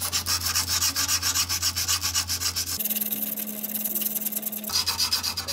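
240-grit sandpaper on a hand sanding block rubbed quickly back and forth across the steel of a Damascus knife blade, several scratchy strokes a second. It is hand-blending the step left where the chipped edge was ground back.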